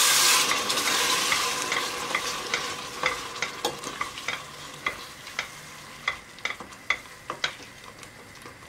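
Blended tomato poured into a hot stainless steel stockpot sizzles loudly at first, the hiss dying away over the first second or two. A wooden spoon then stirs the thick sauce, knocking and scraping against the pot about three times a second.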